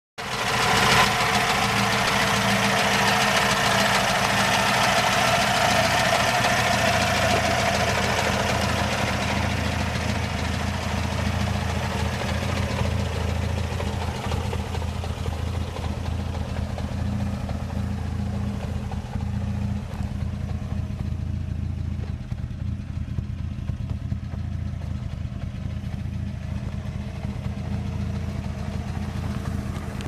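Opel Ascona i400's 2.4-litre 16-valve four-cylinder engine idling. It is louder and brighter for the first several seconds, then settles to a steady, even idle.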